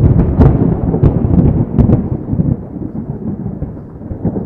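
Thunder-like sound effect for a logo intro: a sudden loud crack, then a crackling low rumble that slowly fades and cuts off abruptly near the end.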